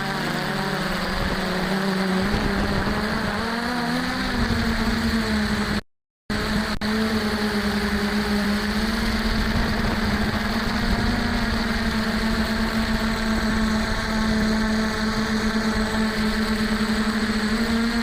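F450 quadcopter's four stock brushless motors and propellers whining in flight. The pitch wavers for the first few seconds, then holds steady, with a brief dropout about six seconds in.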